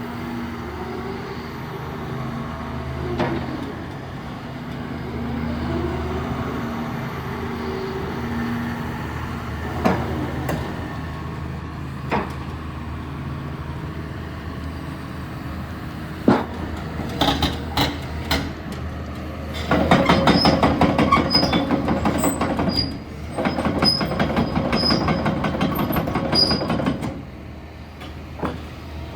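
Caterpillar 323E hydraulic excavator at work: its diesel engine runs steadily under a rising and falling hydraulic whine, with a few sharp knocks. For most of the last ten seconds, loud rattling and clattering from the machine working covers the engine.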